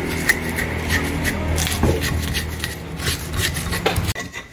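Stone pestle grinding and crushing a spice paste of shallots, garlic, chillies and candlenuts on a stone cobek mortar: repeated stone-on-stone scraping strokes that stop shortly before the end.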